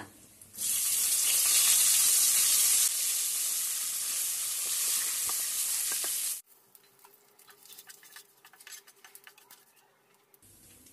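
Fresh curry leaves dropped into hot tempering oil in a steel kadai, sizzling loudly: the tadka for kadhi. The sizzle cuts off suddenly about six seconds in, leaving only faint clicks.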